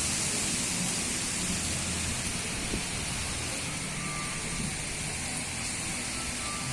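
Storm of strong wind and rain: a steady hiss that eases slightly.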